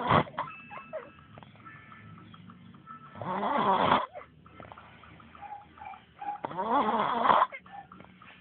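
Loud snoring: two long snores about three seconds apart, with a short, sharp burst of sound right at the start.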